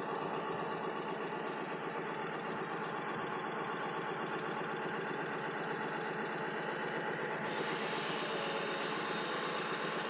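Servo-driven knitwear linking machine running steadily at its 500 rpm 'export standard' speed, a fast even mechanical chatter. A higher hiss joins about three-quarters of the way through.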